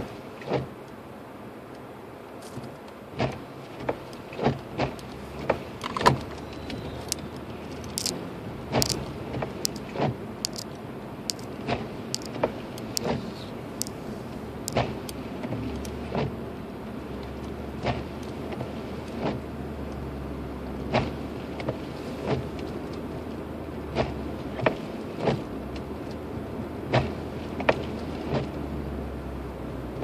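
Inside a car's cabin, driving slowly on snow-covered roads: a steady low rumble of engine and tyres that grows heavier about halfway through. Over it come frequent, irregular sharp clicks and taps.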